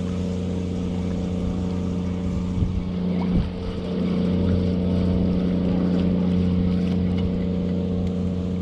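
Motorboat engine running steadily, a low hum that grows a little louder about four seconds in. Two brief knocks sound around three seconds in.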